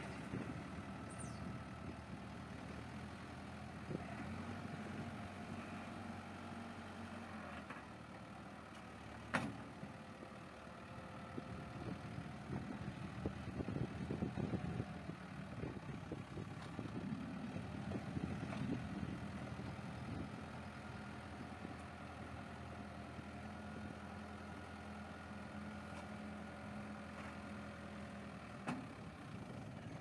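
Caterpillar 428E backhoe loader's diesel engine running steadily at low revs. There is a single sharp knock about nine seconds in, and a rougher, louder stretch in the middle while the front bucket works the soil.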